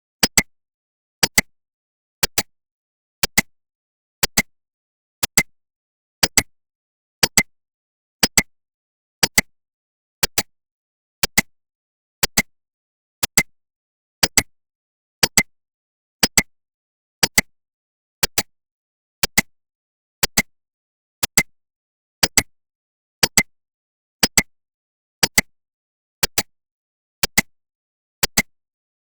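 Countdown timer tick sound effect: a sharp double click once every second, evenly paced.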